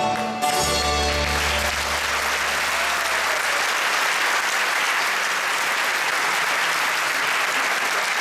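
A piano-and-guitar ensemble ends on a held final chord about a second in, its low bass note fading away, and the audience breaks into steady applause.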